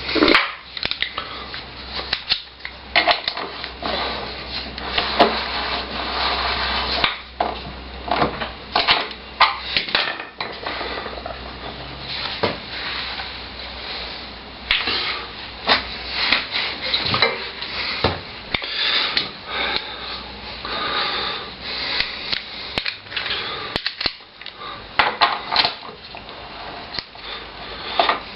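Irregular metallic clinks, knocks and scraping of hand tools and parts as a motorcycle front wheel is refitted, with its spacers, axle and bolts being worked into place.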